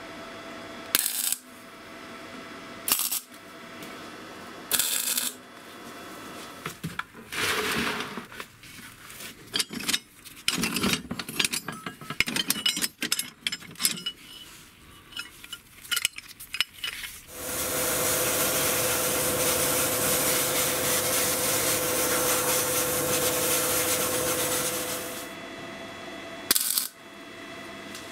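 Metal parts clinking and knocking as they are handled, a few sharp clicks, then a small power tool running steadily for about seven seconds before it stops.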